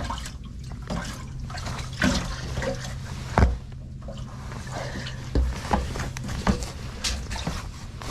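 Water splashing and dripping with a few irregular knocks, as a freshly caught crappie is handled into a fish net at the side of a boat, over a steady low hum.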